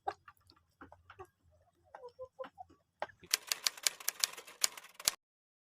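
Scattered faint clicks and taps, then from about three seconds in a dense run of sharp clicks, many a second, for about two seconds, which cuts off abruptly.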